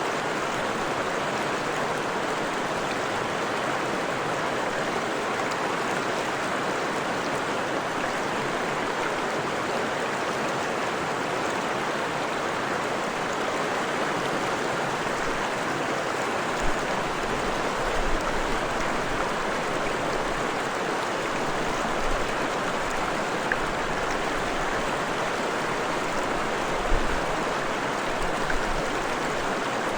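Forest stream flowing steadily over rocks, a dense, even rushing of water. In the second half a few brief low bumps stand out above it.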